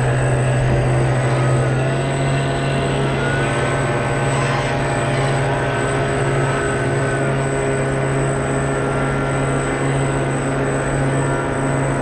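Electric drive of a 1:40 RC model catamaran ferry, heard close up from its onboard camera: a steady low hum with whining tones above it that rise and fall in pitch a few times as the throttle changes, and a thin constant high whine.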